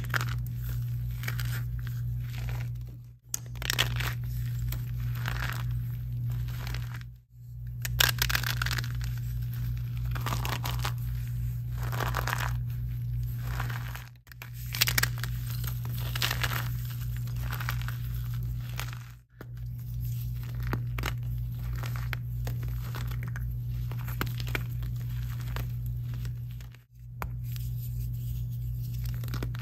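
Blocks of gym chalk squeezed and crushed by hand, crunching and crumbling. The sound breaks off briefly about five times at edit cuts, and a steady low hum runs underneath.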